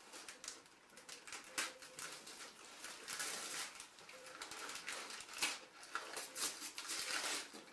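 Gift wrapping paper crinkling and tearing in short, irregular crackly bursts as a large wrapped box is unwrapped.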